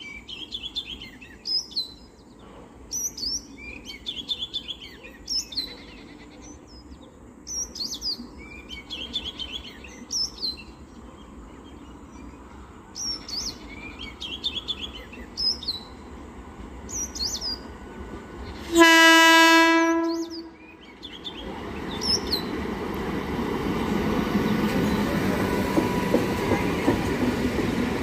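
Birds chirping in short repeated calls, then an Indian Railways train horn sounds one loud blast of about a second and a half. After it the rumble of an approaching train grows steadily louder.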